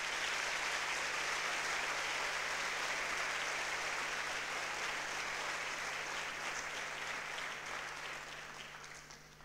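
Large audience applauding, a steady wash of clapping that fades out near the end.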